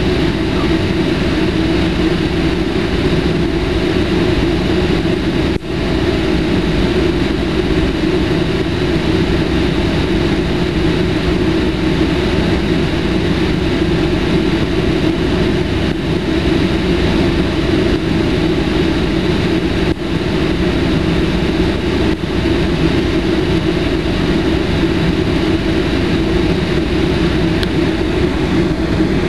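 Jet airliner's engines running at taxi power, heard from inside the passenger cabin: a steady, loud hum and rush of noise that does not let up.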